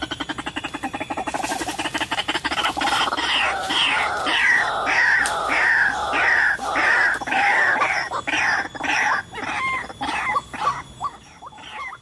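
White-breasted waterhen calling: a fast stuttering run of notes, then a long series of loud falling calls at about two a second, breaking into short rapid notes near the end.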